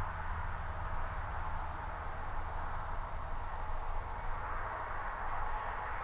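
Steady hiss over a low rumble, with no distinct sound standing out: background noise held during a silent pause in an EVP recording.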